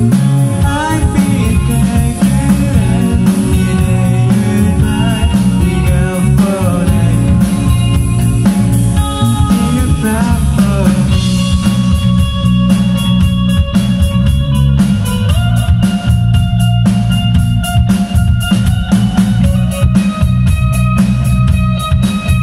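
Live rock band playing: electric guitar, bass guitar and drum kit, with a sung vocal line over the first half that gives way to long held electric guitar notes in the second half.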